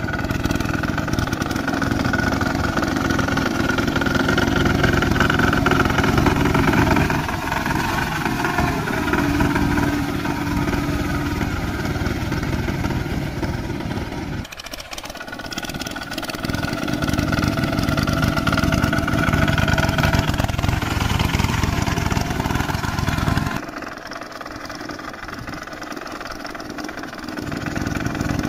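The engine of a two-wheel walking tractor runs steadily as it churns a flooded rice paddy with its cage wheels. Its level and pitch shift abruptly a few times.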